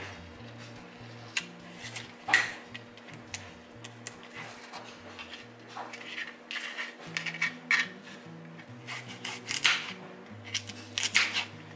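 Kitchen knife chopping carrots on a flexible cutting mat: irregular sharp knocks of the blade through the carrot onto the mat, coming in quicker runs about three seconds before the end and again near the end.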